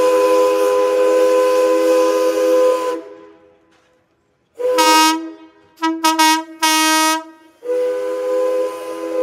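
Steam whistle sounding a chord of several notes: a long blast that stops about three seconds in, a pause of about a second, four short toots, then another long blast near the end. It is blown to signal the opening of the show.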